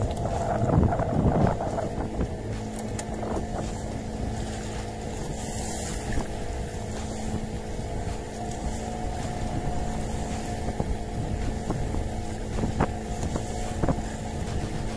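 Small fishing boat's motor running steadily while trolling.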